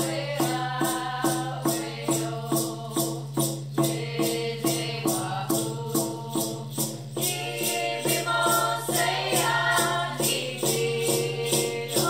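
Voices singing a song to a hand-held frame drum beaten in a steady pulse, about two beats a second.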